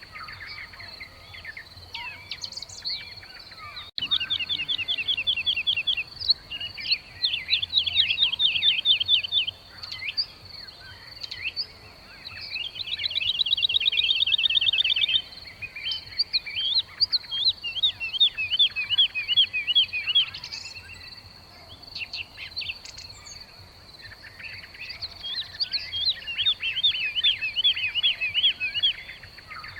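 Weaver birds chattering in bursts of rapid, repeated chirps, each run lasting a few seconds, over a steady high insect buzz.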